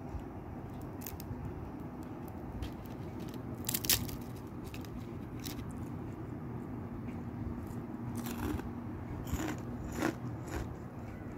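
Crisp crunching of battered, deep-fried bitter gourd leaves: irregular sharp crackles, loudest about four seconds in and again a few times near the end, over a steady low hum.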